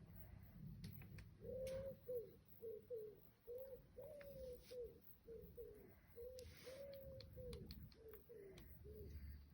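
A dove cooing softly: a run of about a dozen short, low coos, a few of them drawn out longer, over a faint low rumble.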